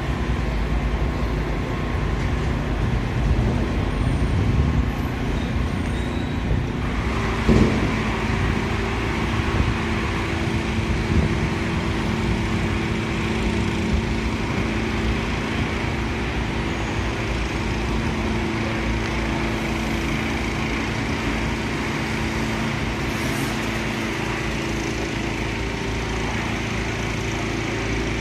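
Street ambience: a low rumble throughout, joined about seven seconds in by a steady engine hum.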